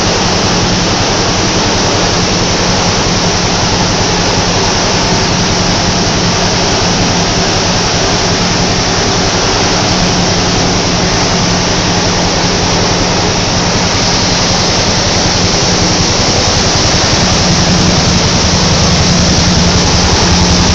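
Tissue-paper production machinery running: a loud, steady, even noise with a low hum underneath.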